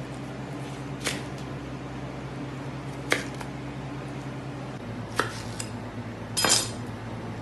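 A large chef's knife cutting through watermelon rind and aspic on a hard table, with four sharp knocks and clatters about one to two seconds apart as the blade meets the table and the wedges are shifted; the last one is a longer, louder clatter. A steady low hum runs underneath.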